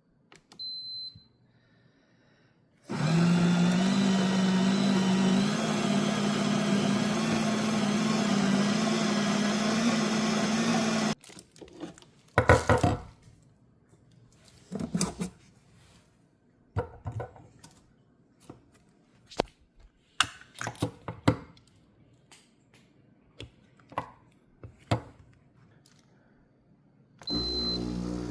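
A short high beep from the Ninja Luxe Cafe espresso machine, then its motor runs loudly and steadily for about eight seconds, stepping up slightly in pitch partway, and stops. After that come scattered clicks and knocks, and a second short beep near the end.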